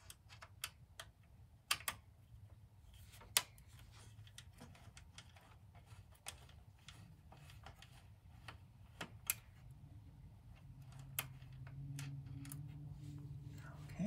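Light, irregular metal clicks and ticks of a screwdriver working the screw that holds a PCI graphics card's bracket in a Power Mac G3 Blue & White, with a few sharper clicks. A low hum comes in about ten seconds in.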